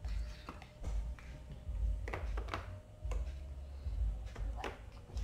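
Small plastic play-dough tubs, moulds and tools clicking and tapping against each other and the tabletop as they are handled, with dull thumps on the table.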